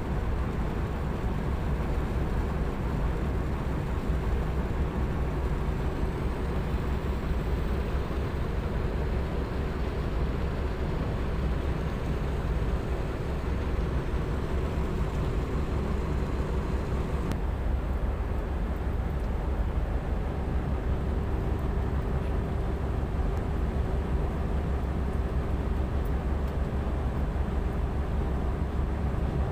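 Steady low drone of a harbour tug's diesel engine working under load while it tows a container ship off the berth, with a faint steady hum over it.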